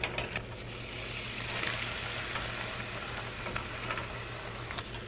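Bacon strips sizzling in a frying pan as more raw strips are laid in: a steady hiss with a few small pops, over a low steady hum.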